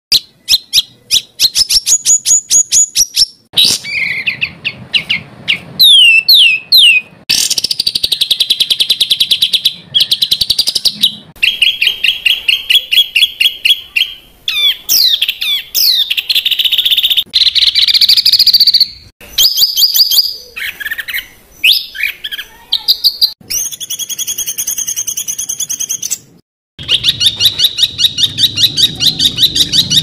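Loud, high-pitched songbird calls in a spliced masteran tutoring track: fast runs of short, sharp repeated notes, quick downward-sweeping whistles and trills, with the song switching abruptly from one phrase to another every few seconds.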